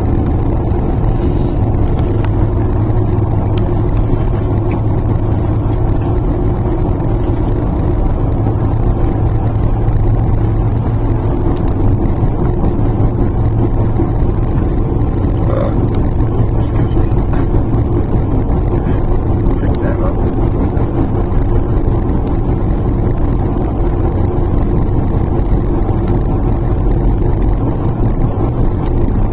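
Car driving at a steady speed through a road tunnel, heard from inside the cabin: a steady low rumble of road and engine noise.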